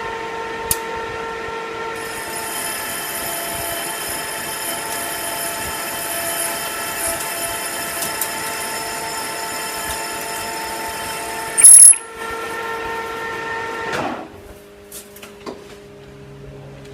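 Metal lathe running with a steady whine of many tones while a cutting tool turns 1018 cold-rolled steel. A hiss of cutting joins about two seconds in, a brief very loud sharp burst comes near twelve seconds, and the cut stops at about fourteen seconds, leaving the lathe running more quietly.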